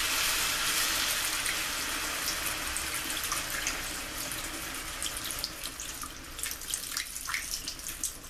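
Pork chops in hot oil in a frying pan, hissing and sizzling as a little water is added. The hiss fades over several seconds, and scattered crackling pops come through near the end.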